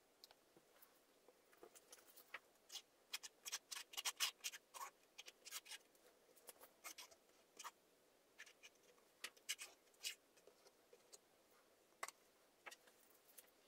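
Red plastic spatula scraping across a stretched canvas, spreading wet acrylic base paint in many short, irregular strokes. It is faint, and the strokes come thickest a few seconds in, then thin out.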